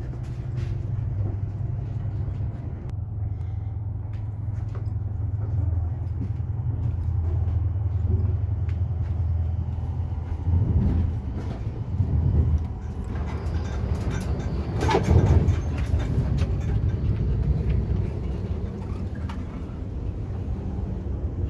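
Steady low rumble of a double-decker passenger train running, heard inside the carriage. Three louder, rougher surges come about halfway through and a little after.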